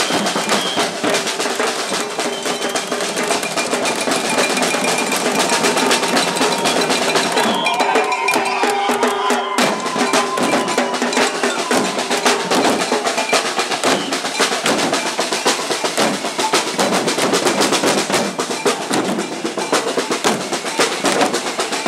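A marching group of street drummers beating snare drums and plastic jerry cans with sticks, a dense rhythm of strikes that does not let up.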